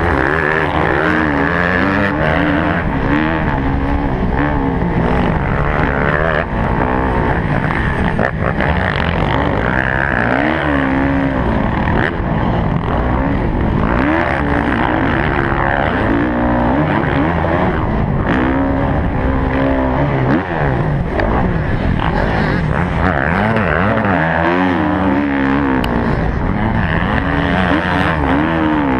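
Motocross dirt bike engine heard from the rider's helmet, revving up and down over and over as the bike is ridden hard through corners and straights, under a steady rush of noise.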